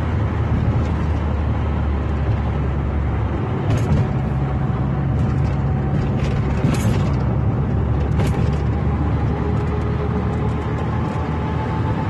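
A car driving along a city street, heard from inside the cabin: a steady low rumble of engine and tyre noise.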